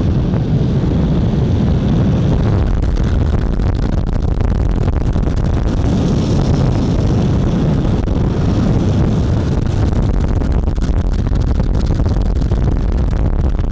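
Downhill longboard at high speed: urethane wheels rolling on asphalt under heavy wind noise on the microphone, a steady, loud noise weighted toward the low end.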